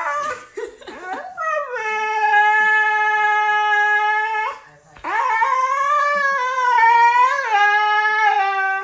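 Siberian husky howling: a few short rising whines, then one long, steady howl of about three seconds, and after a brief pause a second, longer howl that wavers up and down in pitch.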